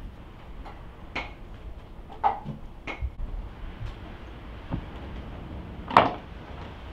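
Wooden cutting board and kitchen knife handled and set down on a wooden table: a few short knocks and clatters, the loudest near the end as the knife is laid on the board.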